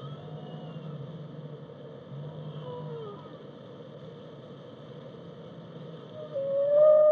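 Whale song: faint calls that glide down in pitch over a steady low underwater rumble, then about six seconds in a loud, long call that rises and then holds its pitch.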